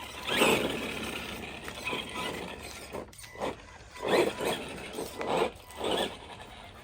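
ARRMA Granite Boost RC monster truck with its brushed Mega 550 motor, driven in several short throttle bursts, its motor and gear drivetrain whirring each time.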